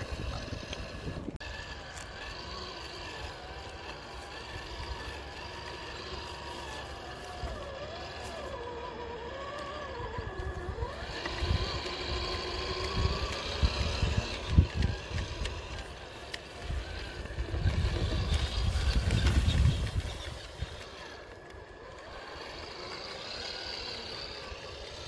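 Small electric motors whining at a steady pitch, with one lower tone wandering up and down as the throttle changes. Through the middle, gusts of wind rumble on the microphone and are the loudest part.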